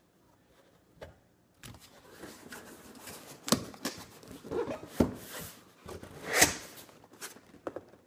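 A cardboard golf-iron box being handled and shifted on a table: rustling and scraping with three sharp knocks, the loudest about six seconds in.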